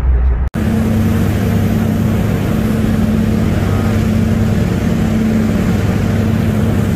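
Car ferry's engines droning steadily under the rushing churn of its propeller wake. The sound begins after a brief drop-out about half a second in.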